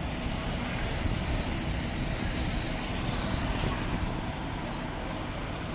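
Steady low rumble of outdoor noise: running vehicle engines with wind buffeting the microphone.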